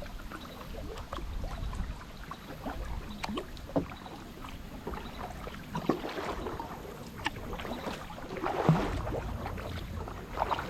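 Kayak being paddled: paddle strokes splashing in the water, with scattered knocks and clicks. The loudest splashes come about six and nine seconds in.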